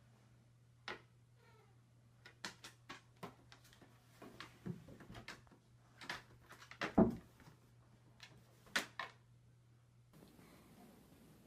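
Scattered light knocks and clicks, with one louder thump about seven seconds in.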